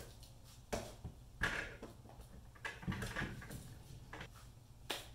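A long tool handle being pushed into the plastic grip clips of a wall-mounted tool rack: a handful of irregular clicks and knocks as the handle snaps in and bumps against the handles beside it.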